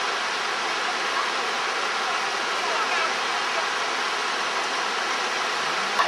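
Fast mountain river rushing over rocks below a bridge: a steady, even roar of white water.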